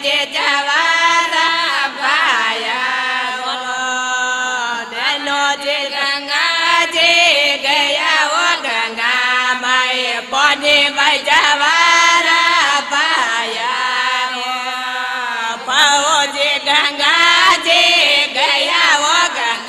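Women's group singing a Marwari devotional folk song to Ganga Maiya in unison, in a chant-like style, with percussion strokes under the voices.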